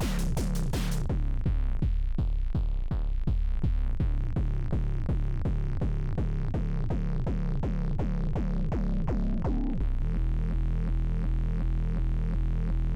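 Hard techno jam on a Korg Volca Drum drum machine and a Make Noise 0-Coast synthesizer: a fast, steady drum-machine beat. The bright hi-hat-like hits drop out about a second in, and near the end a droning, pulsing synth bass comes in under the beat.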